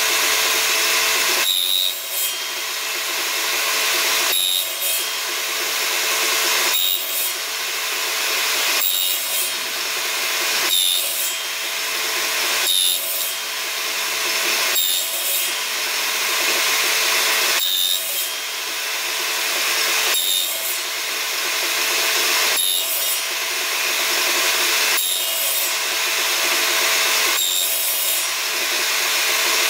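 Table saw running steadily while its blade cuts a series of narrow box-joint slots into the end of a board held on a crosscut sled. There is one pass about every two to two and a half seconds, a dozen in all, each with a brief break as the board is shifted over for the next kerf.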